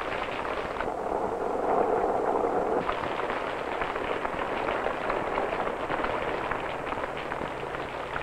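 Rain pattering and splashing on pavement: a dense, crackly patter of many small drops, heard through a worn 16mm film soundtrack.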